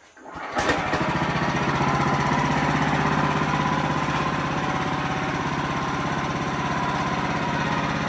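WoodMizer LX55 bandsaw mill running steadily, its engine chugging with an even pulse and a steady whine from the saw. It starts abruptly about half a second in.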